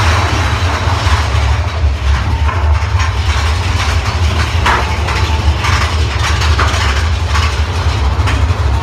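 Big Thunder Mountain Railroad mine-train roller coaster climbing a lift hill. A steady low rumble runs under repeated mechanical clacks, two or three a second, like an anti-rollback ratchet.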